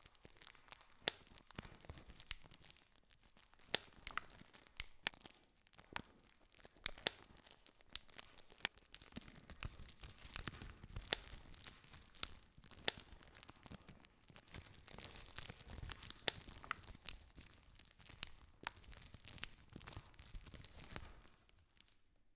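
Campfire wood burning with constant crackling and frequent sharp pops and snaps over a soft low rush of flame; the crackling stops near the end.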